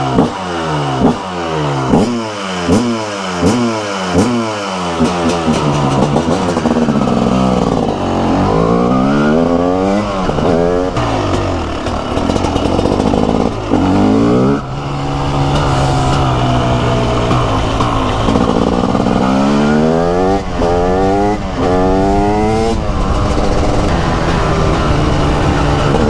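TM SMR 300 two-stroke supermoto engine, its exhaust silencer packing saturated and noisy. It is revved in a run of quick throttle blips, a little under two a second. Then it pulls away about six seconds in, climbing in pitch through several upshifts, easing off briefly and accelerating hard again.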